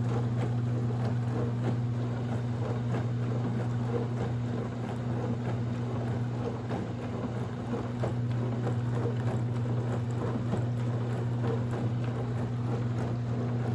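Aikoper countertop dishwasher running its rapid wash cycle: a steady motor hum with water spraying and splashing inside the tub, and small ticks here and there.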